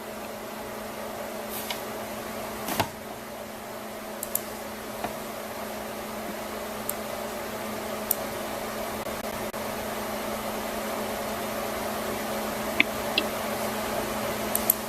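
Steady hum of a running room appliance, with a few scattered clicks; the sharpest comes about three seconds in.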